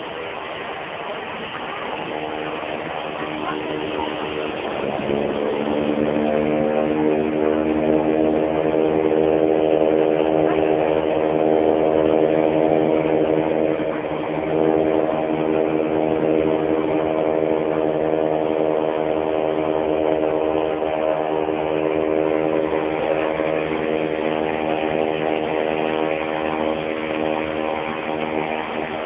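Embraer T-27 Tucano turboprop engines running on the ground as the aircraft taxi, a steady pitched hum that rises in pitch and grows louder about five seconds in, then holds.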